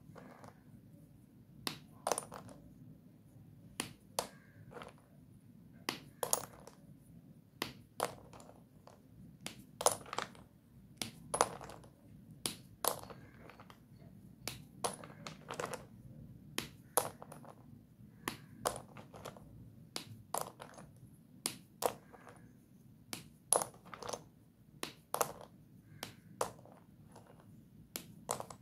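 Sticks of Doms white dustless chalk snapping between the fingers: irregular sharp cracks, one or two a second.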